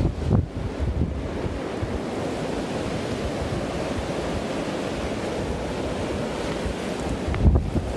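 Strong wind blowing steadily, buffeting the microphone in gusts near the start and again near the end.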